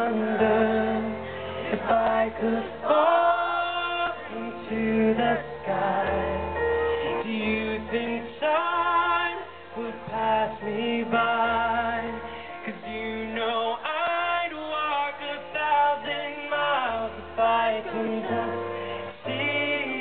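Live pop ballad: a male singer's amplified voice over piano, heard through a concert sound system from the audience.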